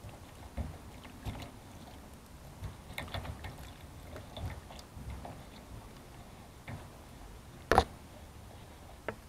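Water poured from a plastic bottle splashing onto a car's painted metal roof while a hand rubs the wet surface, with scattered small splashes and patters. A single sharp knock about three-quarters of the way through is the loudest sound.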